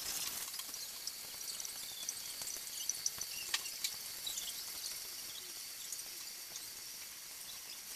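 Water from a garden hose running into a half-filled aquarium: a steady high hiss with small splashes and clinks, one sharper click about three and a half seconds in.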